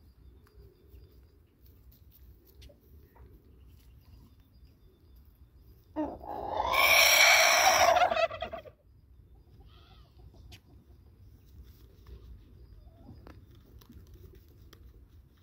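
A rooster crows once, loud and close, about six seconds in, one drawn-out call of nearly three seconds.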